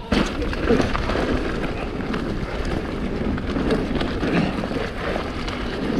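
Wind buffeting the microphone over the rolling noise of knobby mountain-bike tyres on a dirt trail, with scattered knocks and rattles from the bike during a fast descent.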